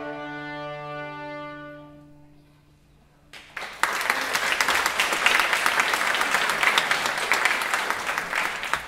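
A children's violin ensemble holds its final chord, which fades away over about two seconds. After a short hush, the audience applauds, the loudest part.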